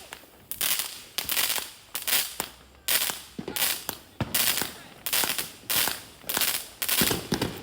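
Consumer fireworks going off in a rapid series of sharp bangs, about one every half second, each trailing off in a short hiss.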